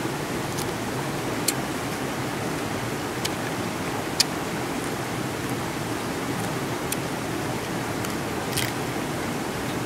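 Steady rush of flowing river water, with a few sharp, irregular crunches as pieces of cooked crab shell are bitten and cracked.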